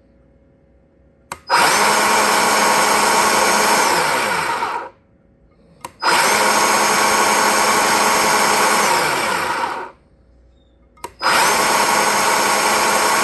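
Bauer 20-volt cordless 10-inch chainsaw running its chain with no load, in three bursts of about three and a half seconds. Each burst starts with a click and the motor spinning straight up to speed. The first two wind down as the trigger is released, and the third is still running at the end.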